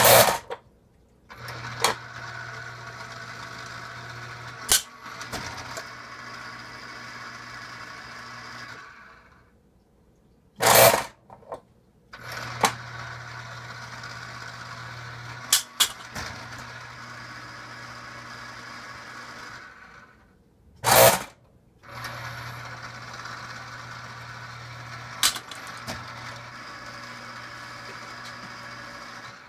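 American Flyer log loader going through three lifting cycles. Each opens with a loud clatter of wooden logs dropping. The loader's electric motor then runs steadily for about eight seconds while the crane hoists a log, with a sharp click partway through.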